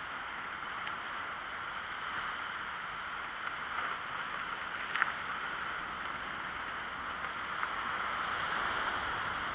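Steady rushing noise of a bicycle ride: wind over the handlebar-mounted camera's microphone and the tyres rolling on the paved path, with one sharp click about five seconds in.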